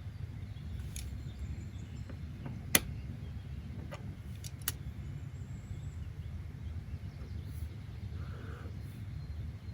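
Steady low background rumble with a few short sharp clicks or taps, the loudest nearly three seconds in.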